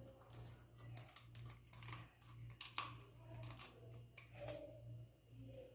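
Kitchen scissors cutting through a whole raw fish: a series of irregular crisp snips and crunches as the blades go through scales and bone.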